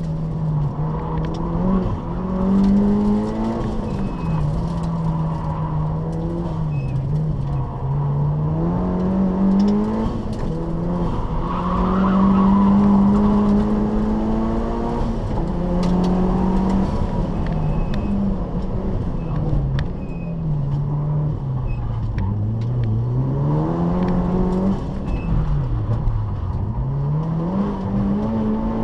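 Car engine heard from inside the cabin, driven hard: the revs climb and fall over and over with gear changes and lifts off the throttle, and hold high for a couple of seconds near the middle.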